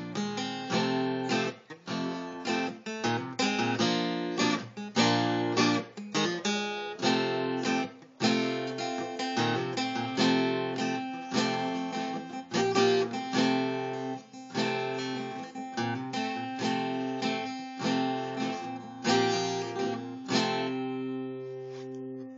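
Acoustic guitar strumming chords, with no singing. Near the end a last chord is left to ring and fade.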